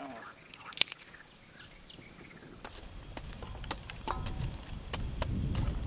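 Scattered sharp clicks and knocks from a wood fire crackling and metal tongs setting lumps of charcoal in a clay-lined bucket stove. A low rumble builds in the second half.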